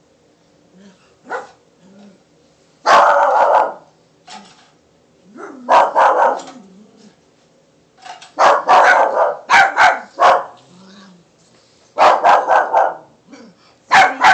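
A small puppy barking in loud, high yaps, a few single barks at first, then quick runs of four or five barks, with low growls in the gaps between.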